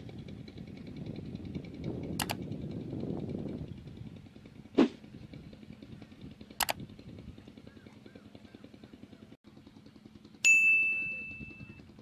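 Added on-screen sound effects: short sharp clicks, the loudest about five seconds in, then near the end a loud bell-like ding that rings on one high tone and fades over about a second. Faint bird chirps and a low outdoor rumble sit underneath.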